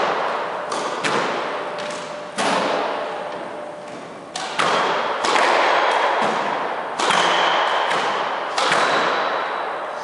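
Squash rally: a string of sharp hits as the rubber ball is struck by the rackets and smacks off the court walls, each echoing in the enclosed court.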